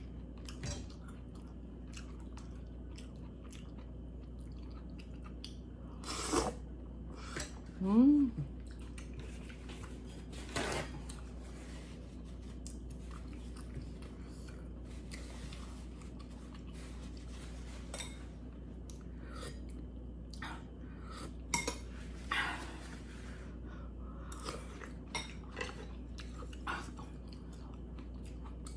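Close-up eating sounds: chewing and slurping of noodle soup, with chopsticks clicking against a stainless steel pot now and then. About eight seconds in comes a short rising hum of the voice, the loudest moment.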